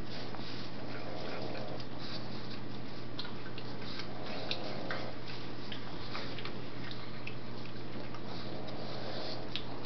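A pug gnawing on a chew, scattered soft clicks of teeth on the chew, with three short low vocal sounds from a pug spaced a few seconds apart, over a steady low hum.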